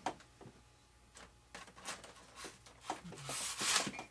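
Handling noise from fitting a servo horn onto a pushrod wire inside a model airplane's fuselage: scattered light clicks and rubbing scrapes, with a louder hissing rush near the end.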